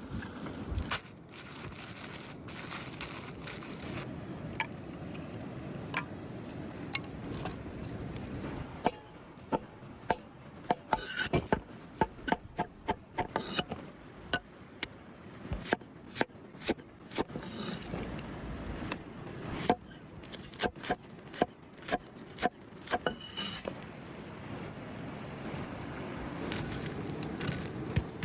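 Cooking utensils scraping and rubbing, with a run of sharp, irregular knocks, about one or two a second, through the middle stretch.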